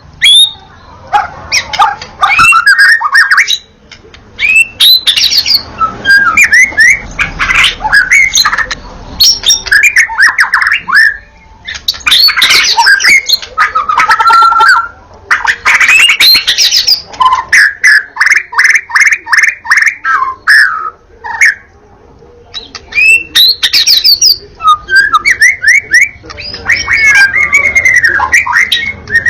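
White-rumped shama singing a loud, varied song at full tilt: whistled phrases, fast runs of repeated notes and harsher chattering notes, in bursts separated by short pauses.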